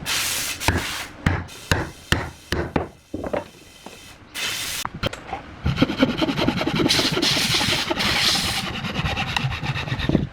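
Hand scraping and rubbing on wood: short scrapes and a few knocks at first, then a long stretch of continuous rasping strokes from about halfway through.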